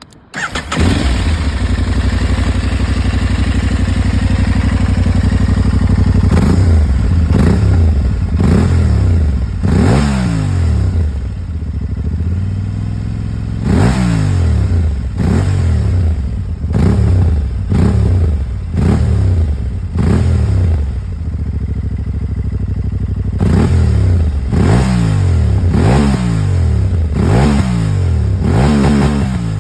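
Aprilia Tuareg 660's parallel-twin engine through its stock exhaust, starting up about half a second in and idling steadily. From about six seconds on it is revved in a long series of quick throttle blips, each rising and falling in pitch, with a short return to idle around twelve seconds.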